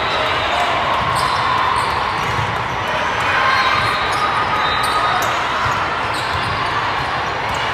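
Volleyball rally: the ball is hit and strikes the hard court floor, over a steady din of voices and other games in a large hall.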